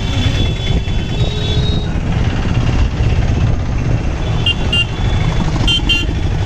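Loud, steady wind and engine rumble on a moving motorcycle, heard from the pillion seat. Vehicle horns beep briefly twice, about four and a half seconds in and again near six seconds.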